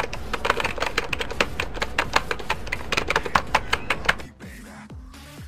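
Typewriter keystroke sound effect: a rapid run of sharp clicks that stops suddenly about four seconds in. Quieter electronic music with deep falling kick-drum beats follows.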